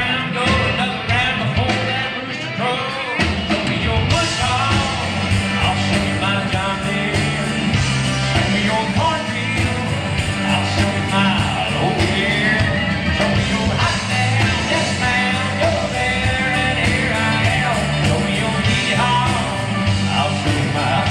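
Live country band playing amplified, with singing over the instruments.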